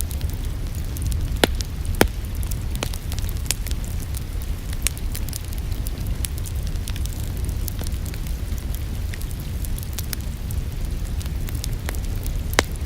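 Wood fire crackling in a fireplace over a steady low rumble, with frequent small crackles and a few louder pops, two early on and one near the end.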